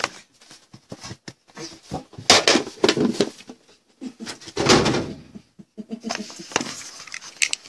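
A cardboard trading-card hobby box (2016 Panini Immaculate Baseball) being handled on a table: scattered taps, scrapes and rubs as it is touched and moved, with a louder burst of handling noise about halfway through.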